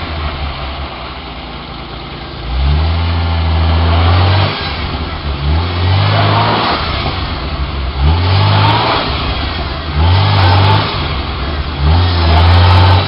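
1987 Jeep Cherokee's engine revved hard in about five repeated bursts, roughly two seconds apart, with the wheels spinning in mud. The Jeep is hung up with a rock under the front control arm and differential.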